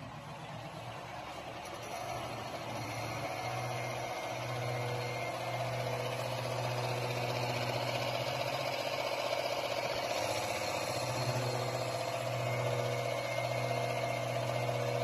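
CNC wood lathe starting its machining cycle: the machine's running sound builds over the first two to three seconds, then holds as a steady hum.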